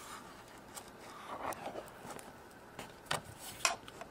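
Plastic toy pizza-box cutter being closed over a modelling-dough pizza and pressed down to slice it. It makes a few light plastic clicks and taps with some soft scuffing, and the sharpest clicks come near the end.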